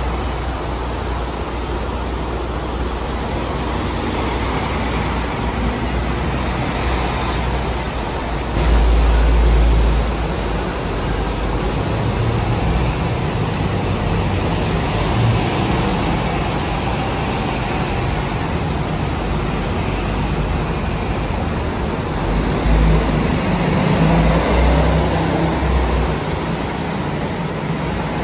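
City buses driving past and pulling through a bus interchange: a steady low engine rumble with road and traffic noise, swelling louder about nine seconds in and again later as buses pass close by.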